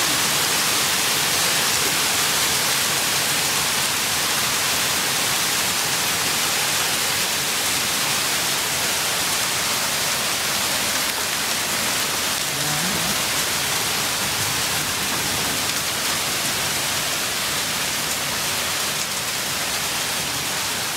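Heavy rain mixed with small hail falling steadily, an even hiss with no single hits standing out.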